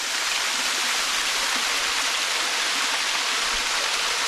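Small waterfall pouring onto rocks: a steady, even rush of falling water.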